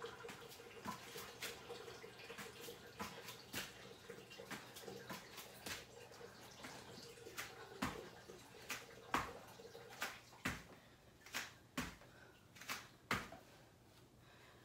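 Bare feet hopping and landing on a yoga mat over a hard floor: quick, faint taps from low tuck jumps in a plank, then louder, more widely spaced landings from star jumps in the second half, stopping shortly before the end.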